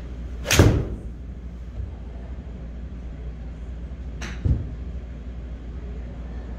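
A 7-iron strikes a golf ball off a hitting mat with one loud, sharp smack about half a second in. A softer knock follows about four seconds later, over a steady low hum.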